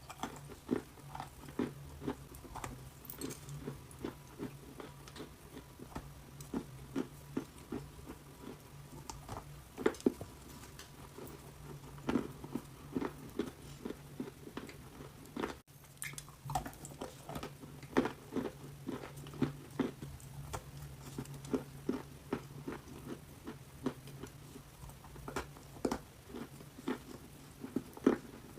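Close-up crunching and chewing of hard, dry clay: many short, irregular crunches, several a second, as pieces are bitten and ground between the teeth, over a faint steady low hum.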